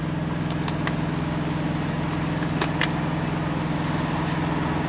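Semi truck's diesel engine idling, a steady low hum heard inside the cab, with a few faint clicks over it.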